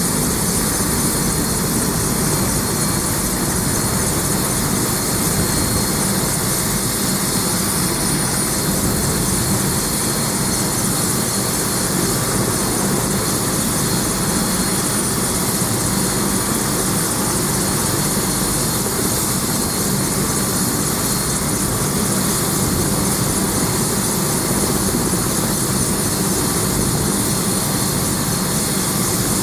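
Bell 407 helicopter's turboshaft engine and main rotor running steadily on the ground, a steady high turbine whine over an even rumble.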